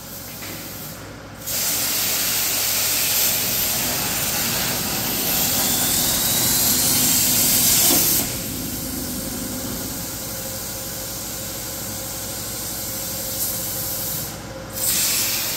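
Plasma torch of a Boxer Soldas Hardcut 82 CNC plasma table cutting a metal plate: a loud, even hiss that starts about a second and a half in, eases off about halfway through, and stops just before the end.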